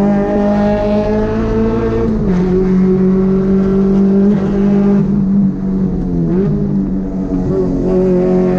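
Car engine held at high, steady revs, with a slight drop in pitch about two seconds in and a brief dip and recovery around six seconds in.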